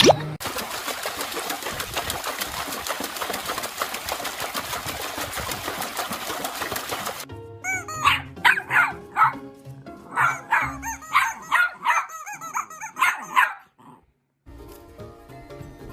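An animal giving about a dozen short calls that rise and fall in quick succession, over background music. Before the calls there are several seconds of a steady rushing noise.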